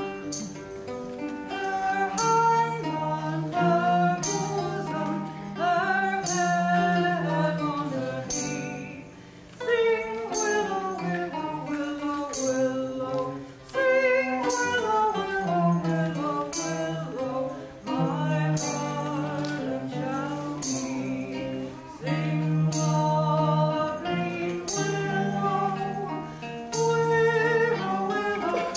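A small group of singers sings a slow melody over cello accompaniment. Sharp percussive hits fall at regular intervals throughout.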